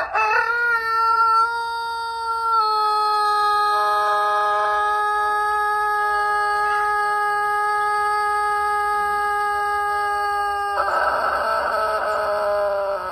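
A rooster crowing one very long, drawn-out crow, held at a nearly steady pitch for about ten seconds. Near the end it turns rough and slides down in pitch.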